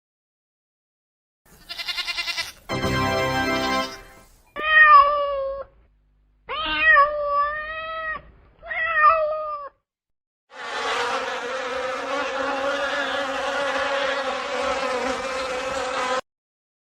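A run of animal calls: a short harsh noise, then three separate cries that rise and fall in pitch, then one long steady call that cuts off suddenly near the end.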